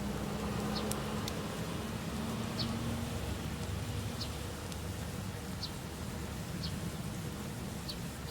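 Campfire burning with a steady low rush and a few sharp crackles, with an insect buzzing over it and short high falling chirps repeating every second or so.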